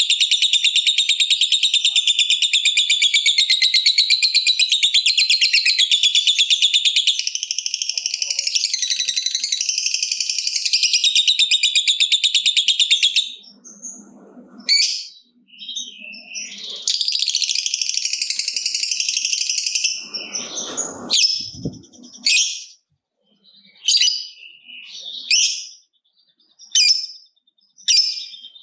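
Lovebird singing its long, rapid chattering trill (the 'ngekek panjang' that fanciers prize), unbroken for about thirteen seconds. After a short gap comes a second, shorter trill, then a run of short sharp calls about a second apart.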